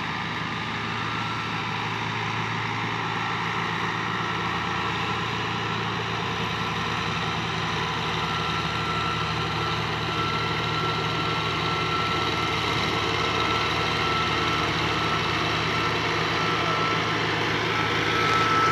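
Diesel tractor engines working steadily under heavy load as a Digitrac tractor pulls a loaded trolley with a Swaraj 855 helping. The engine speed holds without dropping. A thin high whine runs over it, and the sound grows slightly louder near the end.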